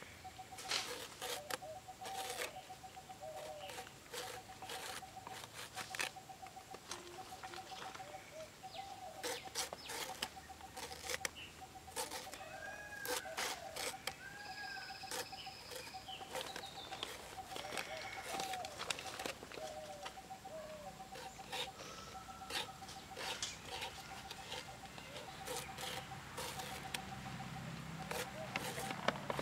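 Banana flower core being grated by hand on the serrated edge of a boti blade: a quick, uneven run of short scraping strokes. Behind it chickens and other birds call, one giving a fast pulsing call over and over.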